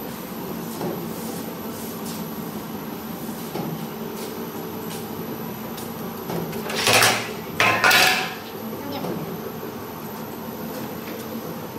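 Dough divider-rounder machine running with a steady hum, with two loud metallic clatters about seven and eight seconds in, as metal bun trays are handled.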